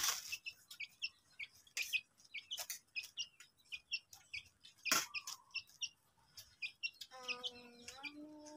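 Birds chirping in short, repeated high notes, with a few sharp clicks like tableware at a meal. Near the end, a rooster crows once in a long, drawn-out call.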